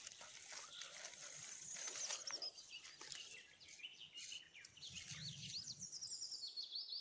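A small bird calling in a run of quick, high chirps from about two seconds in. At the start there is a soft rustle of dry leaf litter and grass as the mushrooms are pulled up by hand.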